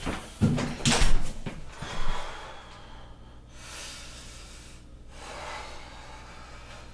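Several heavy thumps in the first two seconds, then a person's slow, heavy breathing, two long breaths, over a low steady hum.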